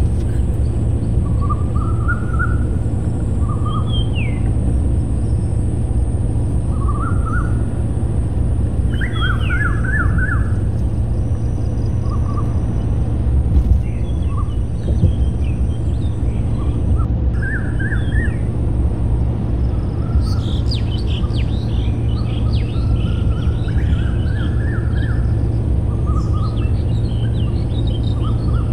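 Birds chirping and calling in short scattered phrases, busier in the second half, over a steady low rumble.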